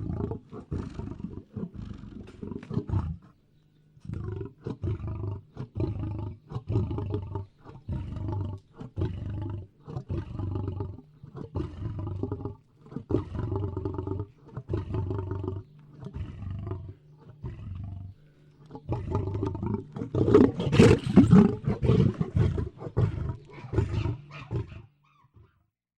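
Lion roaring in a long series of repeated low, grunting calls with short gaps between them, the loudest calls coming about three-quarters of the way through before the series stops shortly before the end.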